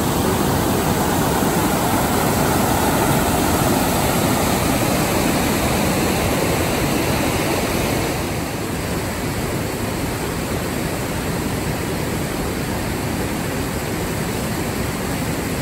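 A fast glacial river of grey, silty meltwater rushing over boulders: a loud, steady sound of white water, a little quieter from about eight seconds in.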